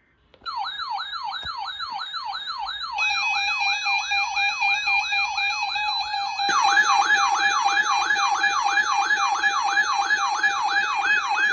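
Electronic siren-type alarm: a pitched tone sweeping down over and over, about three times a second. Steady high tones join about three seconds in, and a second, louder sweeping layer joins about six and a half seconds in.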